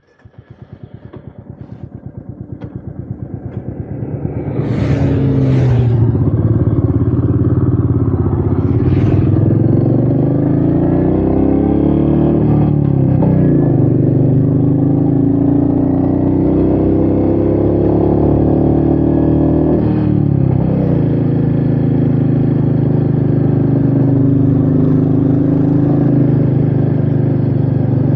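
Royal Enfield Meteor 350's single-cylinder engine running on the move, fading in from silence over the first few seconds. The revs dip and climb again a couple of times, with wind noise on the microphone.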